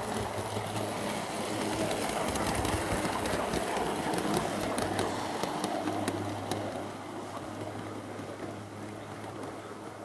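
Gauge 3 garden-railway train, a GWR pannier tank locomotive hauling an auto coach, rumbling along the track; it grows louder as it passes and fades as it runs away into a tunnel.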